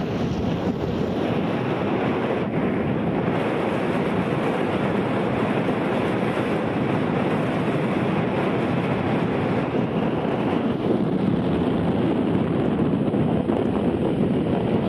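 Steady wind rushing across the microphone.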